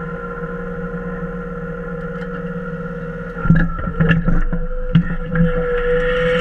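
Hitachi EX22 mini excavator's diesel engine running steadily. About three and a half seconds in it gets louder as the hydraulics move the splitter attachment, with a run of knocks and clanks and an engine note that rises slightly near the end.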